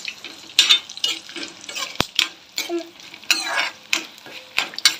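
Steel ladle stirring and scraping peanuts, curry leaves and chillies frying in oil in a metal kadai, with irregular clinks against the pan and a light sizzle. One sharp clink about two seconds in.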